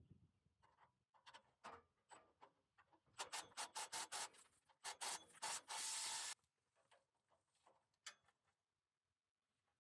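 Faint scraping and rasping strokes of hand work on a rusted exhaust pipe: scattered strokes, then a quick run of them about three seconds in, and a brief steady hiss near the sixth second.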